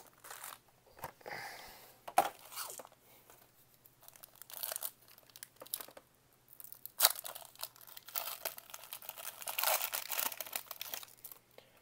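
Foil wrapper of a Donruss Optic basketball card pack crinkling and tearing as it is pulled open by hand, in irregular bursts with a few sharp snaps.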